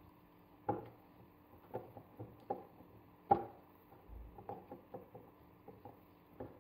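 Silicone spatula stirring melted dark chocolate in a glass bowl, knocking and scraping against the glass: a string of light, irregular knocks, the loudest about three seconds in.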